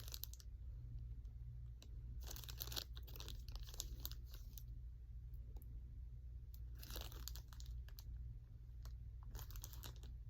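Packaging crinkling and rustling in short spells, as small items are handled and pulled out of their wrapping.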